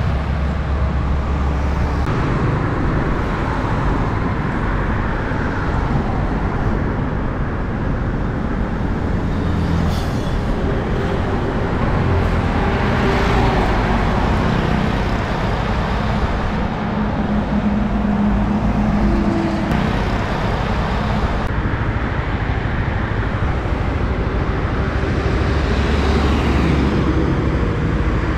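Road traffic passing: container semi-trailer trucks, a box truck and cars driving by, with a steady mix of engine drone and tyre noise. The sound changes abruptly a couple of times.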